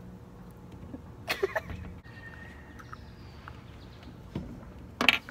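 A girl's short wavering vocal sound about a second in, then a brief louder burst near the end.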